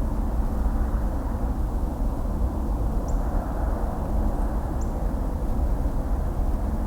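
Distant highway traffic: a steady, even rumble of tyres and engines, heaviest in the low end, with no single vehicle standing out.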